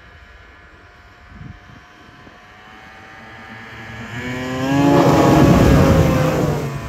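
Snowmobile engine at high revs, growing louder as the sled comes close and rising in pitch as it runs off the snow and skips across open water. It is loudest about five seconds in.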